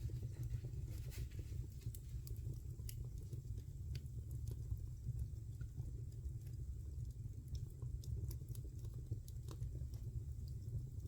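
Wood fire burning in a fireplace: a steady low rumble of the flames with scattered sharp crackles and pops from the burning logs.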